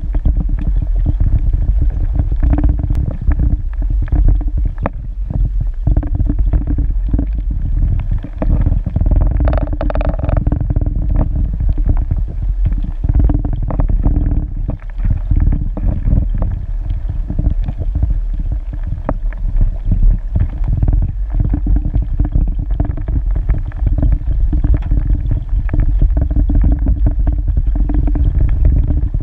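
Underwater sound picked up by a submerged camera: a loud, steady low rumble and hum of moving water, with frequent small clicks and crackles and a short hiss about ten seconds in.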